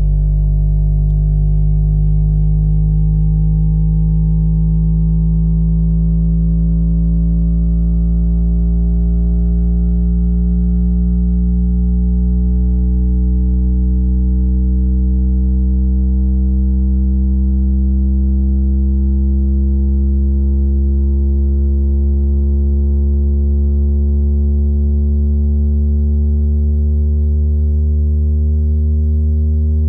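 Yamaha YST-SW030 8-inch subwoofer playing a low test tone that rises slowly and steadily in pitch, loud, with a row of overtones above it.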